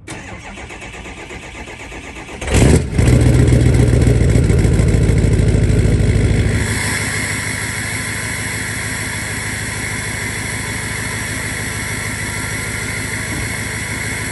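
2005 Ford F-250's 6.0-litre Power Stroke V8 turbodiesel, straight-piped with no catalytic converter, cold-started. The starter cranks for about two and a half seconds, then the engine catches with a sudden loud burst and runs loud and raised for a few seconds. About six and a half seconds in it settles to a steady, quieter idle.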